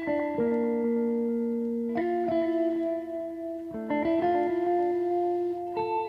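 Background music: ringing plucked notes, with a new group of notes starting about every two seconds.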